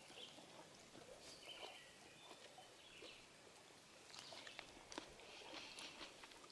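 Near silence: faint outdoor ambience with a few soft clicks in the second half.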